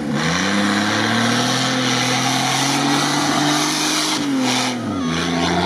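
Off-road vehicle's engine revving hard under load as it drives out of the obstacle. The revs climb over the first second, hold high for about three seconds, then drop near the end.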